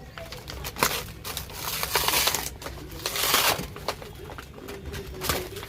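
Plastic toy packaging being handled and opened: crinkling rustles, with two longer bursts about two and three seconds in, amid sharp clicks of small plastic pieces.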